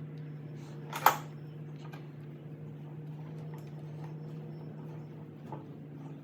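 Workbench handling noise: one sharp clack of a tool or part being set down or knocked about a second in, then a few faint small clicks, over a steady low hum.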